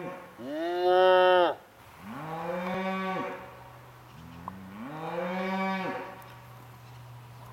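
Cattle mooing calls: a loud moo about a second in, made by a man mooing into his cupped hands to call the herd, then two softer, longer moos about two and five seconds in, each dropping in pitch at the end.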